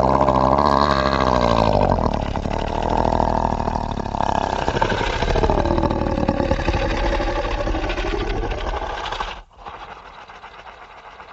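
Horror ghost sound effect: a loud, rough, low rumble with slow swooping pitch glides, dropping suddenly about nine and a half seconds in to a much quieter hissing tail.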